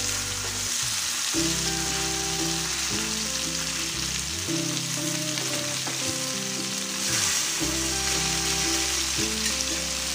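Pomfret fish shallow-frying in coconut oil in a pan, a steady sizzle, as they are turned over with a spatula. Background music with sustained notes plays under it.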